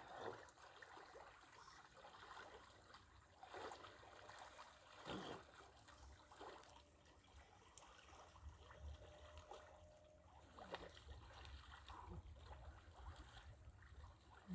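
Near silence with faint lake water lapping and a few soft splashes around a person standing in the water, the loudest about three and a half and five seconds in.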